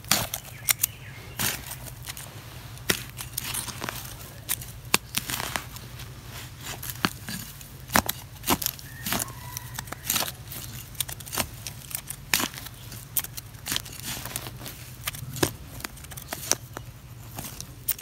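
A stick digging into soil: irregular scratchy scrapes and knocks as dirt is loosened and scraped out of a small hole, over a steady low hum.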